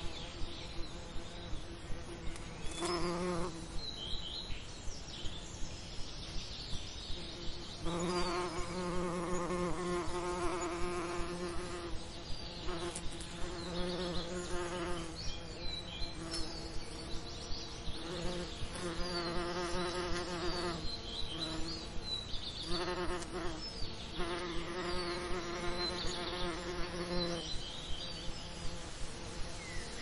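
Bees buzzing around flowers: a pitched hum that swells as they fly close and fades as they move off, in repeated bouts. Brief high chirps are heard here and there.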